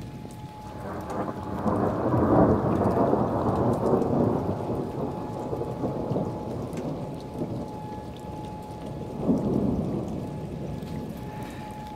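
Rolling thunder: a long low rumble that builds about a second in, peaks a couple of seconds later and slowly fades, then a second, shorter rumble near the end.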